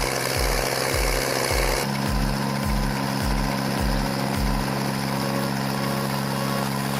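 A heavy machine's engine running steadily under background music with a steady beat of about two thumps a second.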